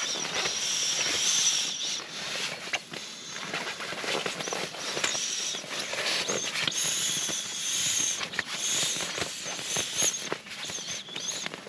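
Crinkling and rustling of a foil-backed foam tent floor mat and an orange sleeping pad as the pad is rolled up and pressed down by hand. High-pitched frog calls come and go behind it.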